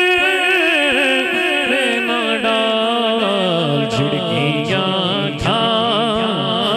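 A male naat reciter singing into a microphone: one long held note that slides slowly downward after about two seconds, then breaks into wavering, ornamented phrases.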